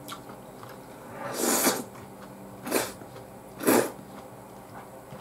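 A person slurping hot udon noodles, three slurps in quick succession, the first the longest, over a faint steady hum.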